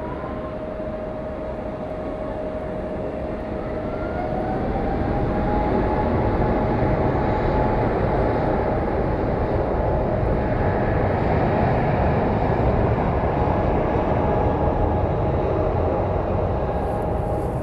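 Jet airliner engines running, with a steady whine over a deep rumble; the noise swells and a second whine rises about five seconds in, then holds steady.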